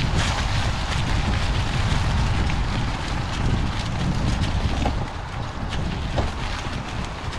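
Wind buffeting the microphone as an electric bike rolls over wet leaf litter, with scattered crackles and snaps from leaves and twigs under the tyres.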